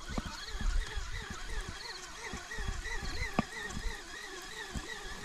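A steady pulsing animal call repeating about four times a second, over a low rumble.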